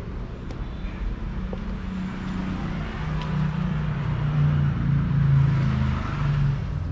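Motor vehicle engine on the road outside, its hum building to a peak about five seconds in and then easing off, as a vehicle passes by.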